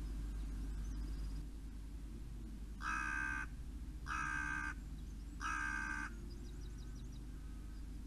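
A crow cawing three times, each harsh caw about half a second long, spaced a little over a second apart.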